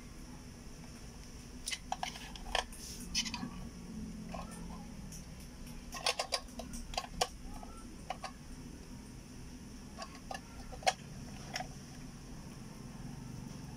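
Scattered sharp plastic clicks and rattles as the black plastic housing of a refrigerator inverter board is handled and its clip-on cover pried off, in clusters with the loudest click near the end. A steady faint hum runs underneath.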